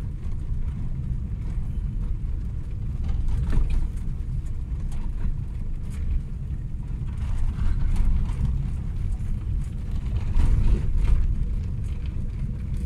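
Car driving on an unpaved dirt road, heard from inside the cabin: a steady low rumble of tyres and engine, with scattered small knocks and rattles as it goes over the rough surface.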